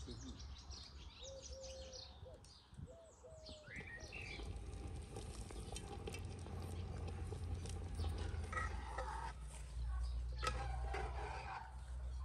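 Small songbirds chirping and calling, over a low steady rumble, with thicker, busier sound in the middle range during the last few seconds.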